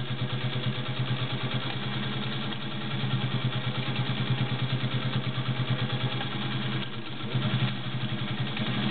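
Singer 201-2 sewing machine, its beltless potted motor driving it directly, running at speed and stitching through six layers of denim. It gives a steady motor hum under a rapid, even needle rhythm, with a brief lull about seven seconds in. The heavy layers do not slow it.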